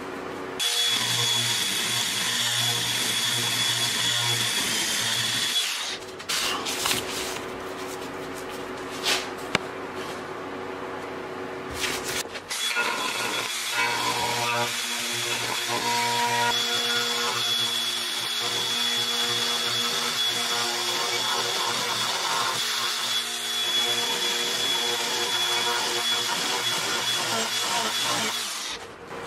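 Angle grinder fitted with a rotary cutter bit, running with a high whine as it carves into a wooden board. The whine drops away for several seconds after about six seconds, with scattered knocks. Then it runs again for a long stretch and cuts off just before the end.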